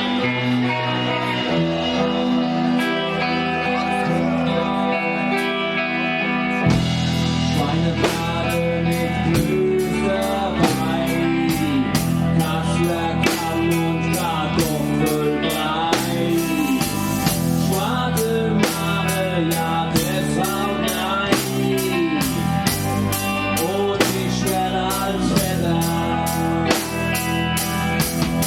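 Rock band playing live: electric guitar alone at first, then the drum kit comes in about seven seconds in with a steady beat under the guitar for the rest of the song passage.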